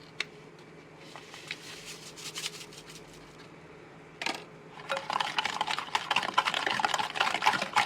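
A bowl of cake batter being mixed: mostly quiet with a few faint clicks, a single knock about four seconds in, then from about five seconds in a rapid, steady clicking and scraping of a utensil beating the egg, sugar and oil batter against the bowl.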